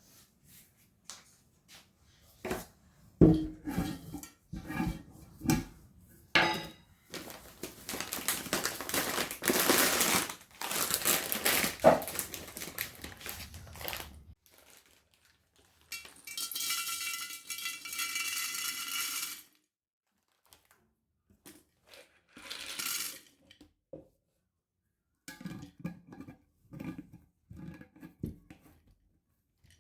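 Kitchen handling sounds: dishes and utensils knocking and clinking as they are moved and set down, with two stretches of several seconds of steady rushing noise in the middle.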